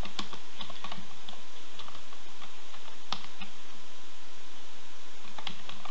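Typing on a computer keyboard: scattered single keystroke clicks at an unhurried, irregular pace, over a steady background hiss.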